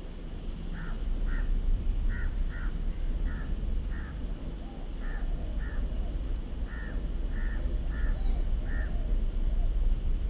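Crows cawing: about a dozen short, harsh calls, often in pairs, over a steady low rumble.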